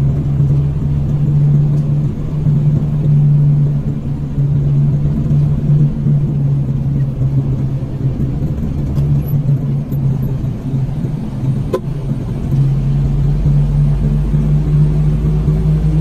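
Steady low drone of a vehicle's engine with road rumble as it is driven along, and a single sharp click about twelve seconds in.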